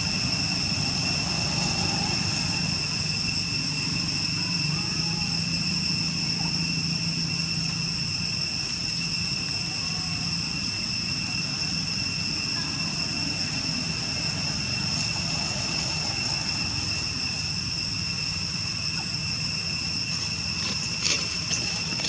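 Steady outdoor ambience: a constant high-pitched insect drone over a low steady rumble, with a few sharp clicks near the end.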